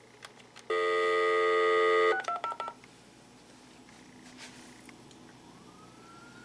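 Touch-tone hotel desk telephone on speakerphone: a couple of faint button clicks, then a steady dial tone for about a second and a half, cut off by a quick run of four or five keypad beeps as a number is dialed.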